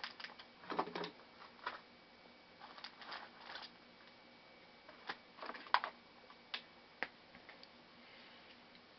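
Faint, scattered clicks and light rustles of fingers handling and twisting a small brass DPSS laser module while trying to break a part of it loose, with a sharper click a little before six seconds in.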